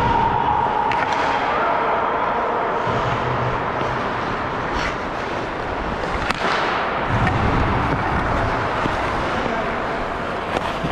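Ice hockey play on the rink: a steady scraping hiss of skates on ice, with a few sharp clacks, the strongest about six seconds in.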